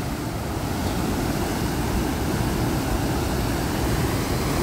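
Turbulent water pouring out of a dam's outlet tunnel into a concrete channel, a steady, loud rush of churning white water.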